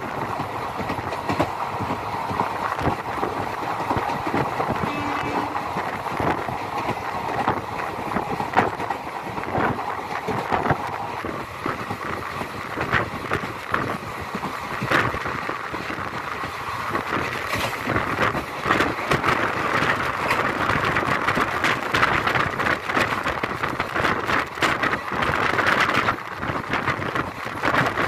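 Express passenger train running along the track, heard from on board: a steady rumble and rattle with irregular clacks from the wheels over the rails.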